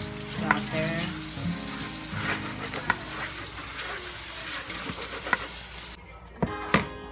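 A spatula scraping and stirring sticky bread dough around a large mixing bowl: a rough, uneven scraping with small knocks, then two sharper knocks near the end.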